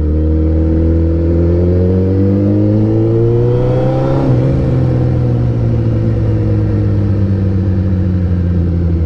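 Suzuki Hayabusa's inline-four engine through a Racefit titanium exhaust, heard from the rider's seat while riding. The pitch climbs steadily as the bike accelerates, drops sharply about four seconds in, and then holds lower and level.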